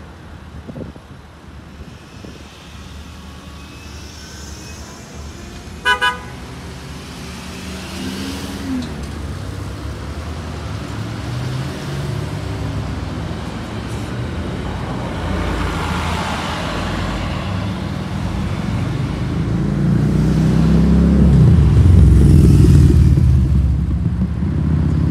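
Orion V diesel transit bus approaching and accelerating past, its engine growing steadily louder and loudest about twenty seconds in, over general traffic. About six seconds in, a vehicle horn gives a quick double toot.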